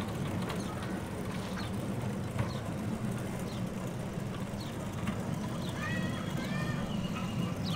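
Steady low hum of a small kiddie trolley ride running around its circular track, with a few short high chirps about six seconds in.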